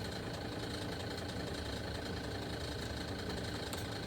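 A steady, even mechanical hum with no distinct knocks or clicks.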